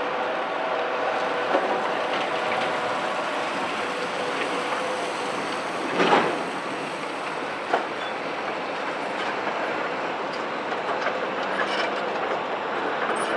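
Large CAT 374F excavator with a C15 diesel running under load as it slews and raises its boom, with a whine in the first few seconds. Metallic clanks come from the grapple and tracks, the loudest about six seconds in and another a moment later.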